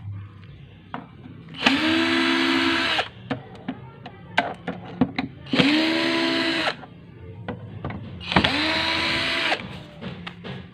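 Electric screwdriver running three times, about a second each, backing screws out of an LED TV's plastic back cover. Each run starts with a quick rising whine that then holds steady, with small clicks and taps of screws and handling in between.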